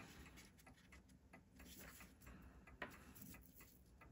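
Near silence: room tone with a few faint, irregular ticks and light clicks, the loudest about three seconds in.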